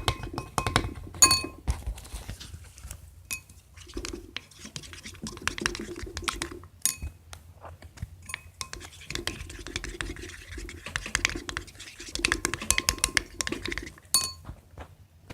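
A spoon stirring thick glue-and-detergent slime in a bowl: irregular knocking and scraping against the bowl, with a short ringing clink about a second in and another near the end.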